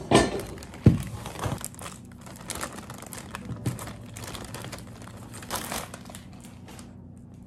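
Clear plastic bag crinkling and rustling as items are pulled out of it and handled. Two sharp knocks about a second apart near the start.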